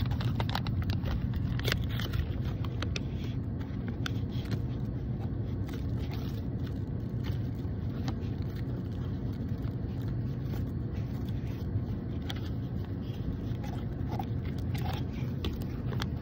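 Steady low rumble of a car running, heard inside its cabin. Scattered small clicks and crinkles come from a plastic toy packet and kinetic sand being handled close by.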